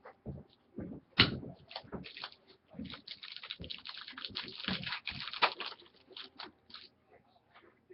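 Handling noise: scattered clicks, then a dense stretch of crinkly rustling and clicking that fades out about seven seconds in.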